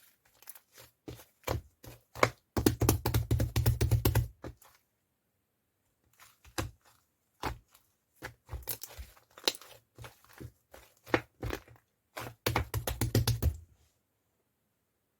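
Crisp clicks and crackles in irregular runs, densest for about two seconds near the start and again near the end.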